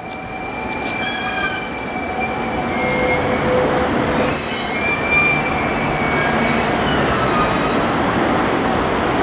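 Kurogane line freight train running past, its wheels squealing on the rails: several shrill tones that come and go and change pitch over the rumble of the train, which grows louder in the first few seconds.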